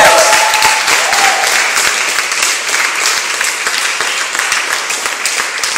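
A room of dancers applauding with dense hand claps, with cheering voices in the first second, and the clapping gradually dies down.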